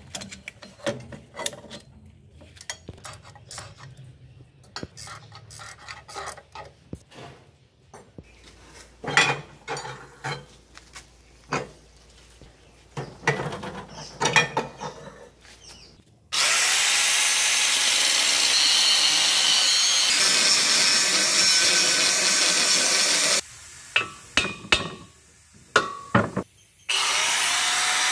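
Metal parts of a rusty drum brake clinking and knocking as they are handled and taken off the axle. About sixteen seconds in, an electric grinder spins up and runs steadily against the steel differential housing, stops about seven seconds later, then spins up again near the end.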